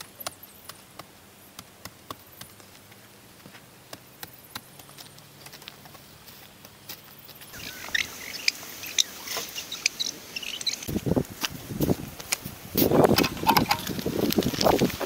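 Spade cutting into soil in a narrow trench, with irregular scraping crunches and clods of earth dropping in. These start about two-thirds of the way in and are the loudest sound. Before them, only faint scattered clicks.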